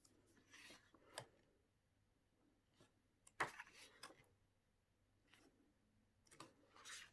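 Pages of a glossy photo book being turned by hand: soft, brief paper rustles and light taps, a few seconds apart, the loudest about halfway through.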